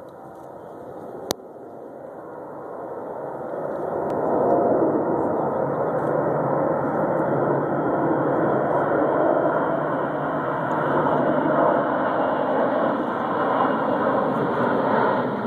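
Jet noise from the four turbofan engines of a low-flying Boeing 747 Shuttle Carrier Aircraft. It grows louder over the first four or five seconds, then holds steady and loud. A single sharp click comes about a second in.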